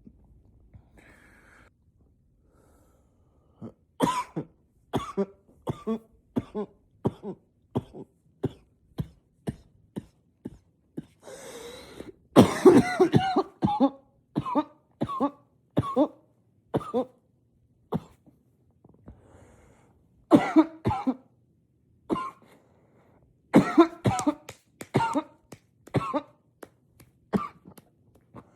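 A man in an unstoppable coughing fit, coughing into a pillow to stay quiet: runs of short, rapid coughs start about four seconds in and come in bouts with short pauses. About eleven seconds in comes a longer noisy breath, then the loudest burst of coughing.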